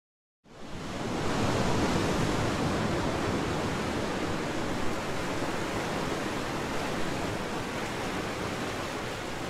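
A steady rushing noise like static, coming up quickly about half a second in out of dead silence and then holding even.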